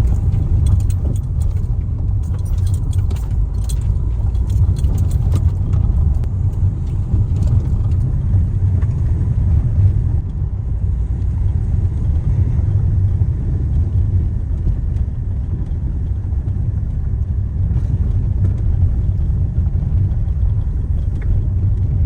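Steady low rumble of a car's engine and tyres heard from inside the moving car, with light rattling in the first few seconds.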